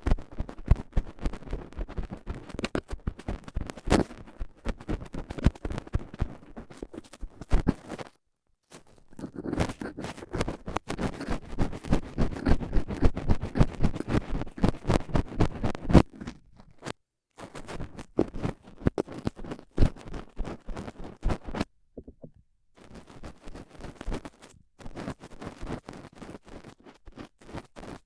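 Stainless steel dental tool scraping and scratching inside an ASMR microphone's ear, close and dense: rapid scratchy strokes in runs, broken by short silences about 8, 17 and 22 seconds in.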